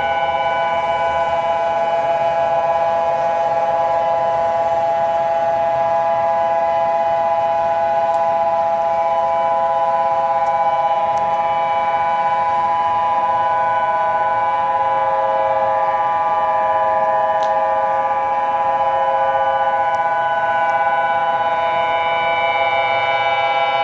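Siren-style alarm tone from an Emergency Alert System alarm: several steady pitches held together as one chord, sounding without a break.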